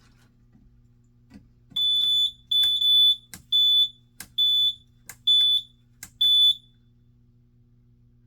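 An alarm panel's piezo beeper sounds about six high-pitched electronic beeps, each about half a second long and most starting with a click, over a steady low electrical hum.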